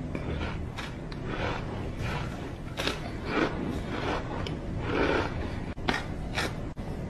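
Packed cornstarch crunching and squeaking as chunks are squeezed and crumbled between fingers and chewed: irregular short crunches, about one or two a second, with a few sharper clicks.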